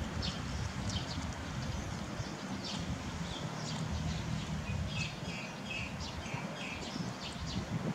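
Small birds chirping, many short high calls one after another throughout, over a steady low rumble.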